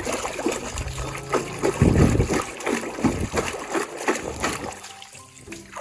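Water splashing and sloshing as a mud-covered toy is rubbed clean by hand in water, in irregular bursts, the biggest splash about two seconds in.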